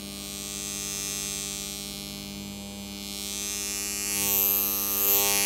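A bank of six computer UPS transformers on mains power, humming steadily as soon as it is switched on; the hum swells a little near the end.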